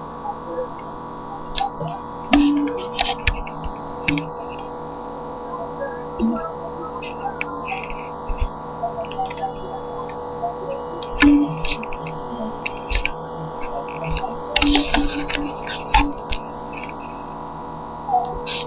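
Steady electrical hum from a webcam's microphone, with scattered clicks and short paper rustles as a magazine is handled and its pages are moved in front of the camera; the rustling is busiest in a cluster a few seconds before the end.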